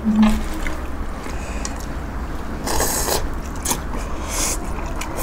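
Close-miked eating noises: chewing, with two short hissing bursts about three and four and a half seconds in, over a steady low hum.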